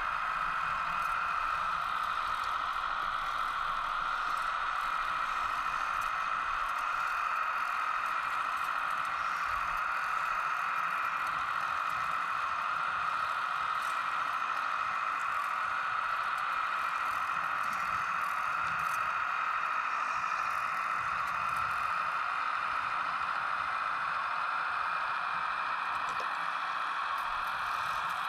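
Hydraulic pump of a radio-controlled Kubota U17 model mini excavator running, a steady whirr that holds the same pitch and level while the boom and bucket are worked.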